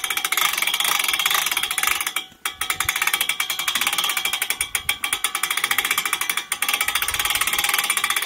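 Hand-cranked ratchet winch on a bale unroller reeling in its strap: a fast, steady run of pawl clicks as the crank turns, broken by a couple of short pauses.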